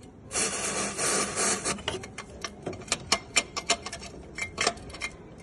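Aerosol cleaner sprayed in a hissing burst of about a second and a half onto the clutch release fork to flush out dirt, then a run of irregular sharp clicks and scrapes.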